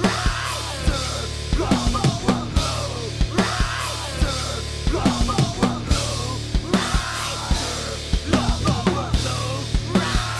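Loud rock music: a band playing with driving drums and a steady bass, no vocals.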